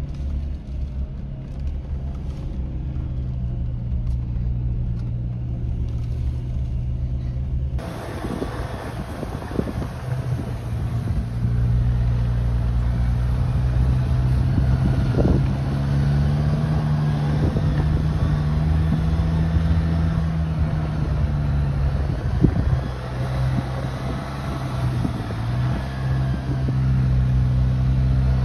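An off-road SUV's engine running steadily as it drives through snowy ruts, its pitch rising and falling a little with the throttle, with a few knocks from the body and suspension. The sound turns abruptly brighter about eight seconds in.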